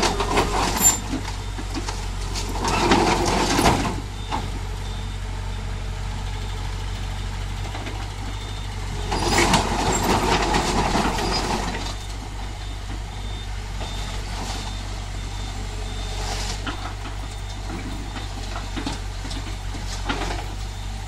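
A Komatsu hydraulic excavator's diesel engine runs steadily and swells three times under load as the tracks and boom are worked, the longest spell around the middle. A faint repeated beeping sounds through the second half.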